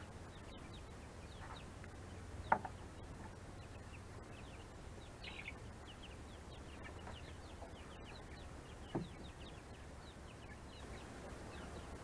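Young chickens peeping over and over in short, high, falling calls. Two louder knocks, about two and a half seconds in and again near nine seconds, come from the wooden coop being handled.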